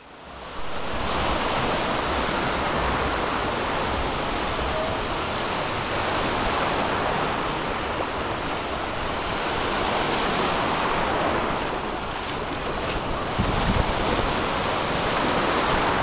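Small waves breaking and washing through the shallows in a steady surf wash, with wind rumbling on the microphone.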